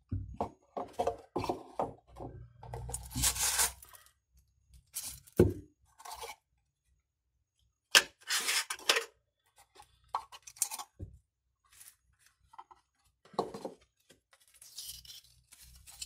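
Cardboard box parts and paper wrapping rustling and crinkling as they are handled, in irregular bursts with a few sharp knocks as pieces are set down.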